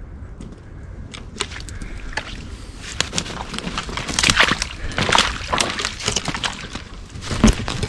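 Footsteps crunching through snow and leaf litter at a walk, uneven strokes that get louder about three seconds in.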